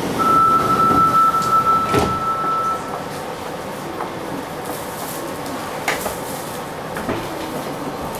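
Inside a Fukuoka City Subway 2000-series car: a steady high warning tone sounds for about two and a half seconds while the sliding doors shut with a knock. After that comes the lower, steady noise of the car, with a few light clicks.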